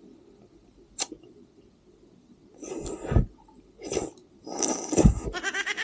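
Biting into and chewing watermelon: three bursts about a second apart, the last the longest and loudest, after a single sharp click about a second in.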